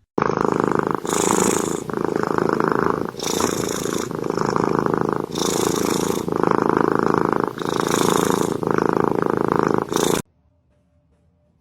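Domestic cat purring loudly without a break. The sound shifts back and forth between two textures in roughly one-second phases as the cat breathes in and out, and it cuts off abruptly near the end.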